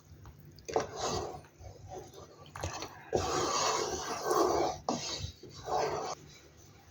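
Kitchen handling noises from cookware and utensils, in several short bursts, the longest about three seconds in.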